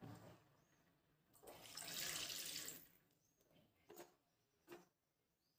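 Water poured from a cup into a pan of cooked vegetables, one splashing pour lasting about a second and a half, followed by two short clicks.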